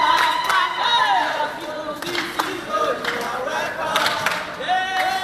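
A group of people singing and calling out together in welcome, several voices overlapping, with a few sharp strikes among them.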